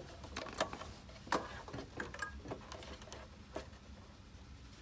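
Scattered light clicks and taps of handling, irregular and a few per second, as fabric is set under an overlocker's presser foot. The machine is not running.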